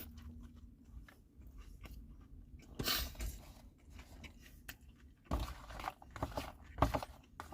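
A person chewing a mouthful of fish taco close to the microphone, with several short, louder crunching or handling noises about three seconds in and again between about five and seven seconds.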